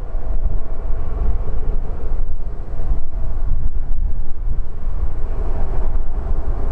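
Airbus A320's CFM56 jet engines running steadily as the airliner rolls slowly after landing, under a heavy low rumble of wind on the microphone.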